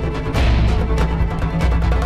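Dramatic soundtrack music with a fast, steady beat over a held low bass.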